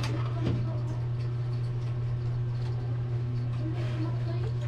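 A steady low hum throughout, with faint small clicks and rustles of cable connectors being handled and plugged in inside a desktop computer case.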